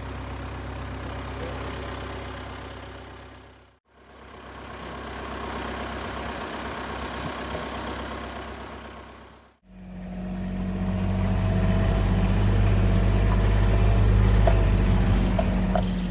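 Vehicle engine running, heard in three short stretches that fade out and back in; in the last stretch it is louder and deeper.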